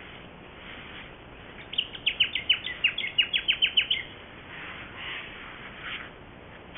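A bird calling: a fast run of about fifteen short, high, down-slurred notes lasting about two seconds, starting about two seconds in. A few fainter, noisier sounds follow.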